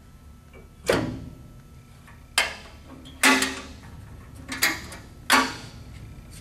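Steel access door on a planer's bottom-head belt housing being worked open and shut: five sharp metal clanks with a short ring, a second or so apart.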